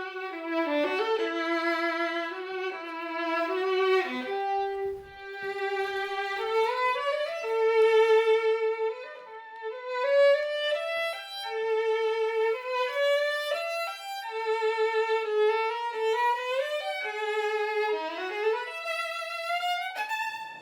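Solo violin, unaccompanied, playing a slow legato melody with vibrato, one note at a time, mostly in its middle register.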